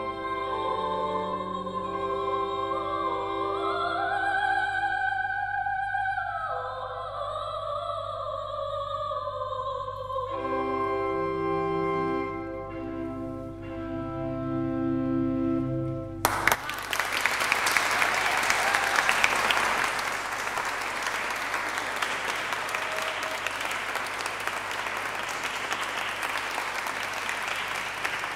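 Solo female voice singing a sacred motet with string and chamber-organ accompaniment, closing on long held notes and a final sustained chord. About 16 seconds in, the audience starts applauding and keeps on.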